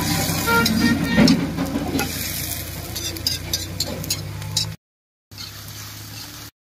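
Metal-on-metal taps and knocks of an axe head crushing whole spices against an iron hammer head, over a steady low engine drone. Near the end, after a brief dropout, oil sizzles quietly in a wok.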